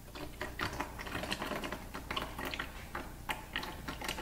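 Irregular clicking and tapping as a manual gearbox's oil drain plug is unscrewed by hand.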